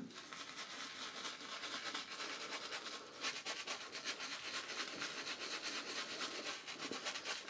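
Small shaving brush working Arko shaving-soap lather over stubbled cheek and chin: a steady bristly rubbing with fine crackles of lather.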